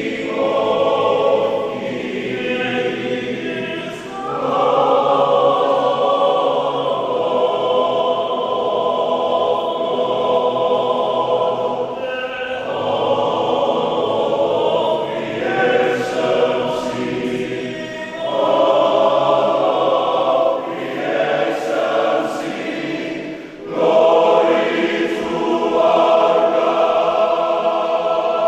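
Men's choir singing in several parts, with brief dips between phrases about 4 seconds in and again near the end.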